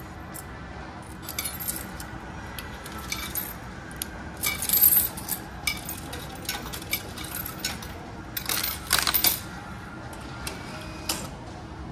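Yen coins clinking and rattling as they are fed one after another into a subway ticket vending machine's coin slot, in irregular bursts. The loudest rattles come about five seconds in and again near nine seconds.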